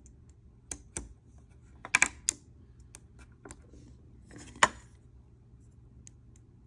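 Button caps of an Apple TV 4K Siri Remote being pushed and snapped into place: a series of sharp plastic clicks, a quick cluster about two seconds in and the loudest single click with a brief rustle a little past halfway.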